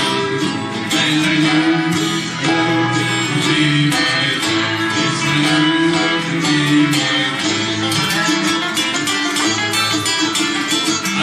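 Live band playing, led by strummed acoustic guitar over an upright bass.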